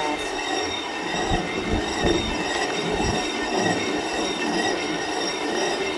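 Hand-turned stone quern (chakki) grinding coarsely pounded salt: the upper millstone rubs round on the lower stone in a steady, continuous grind.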